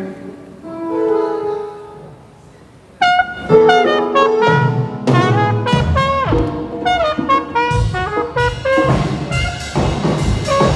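Live band playing, led by brass horns: a quiet few held notes, then the horns come in loud about three seconds in, with bass and drums joining a few seconds later.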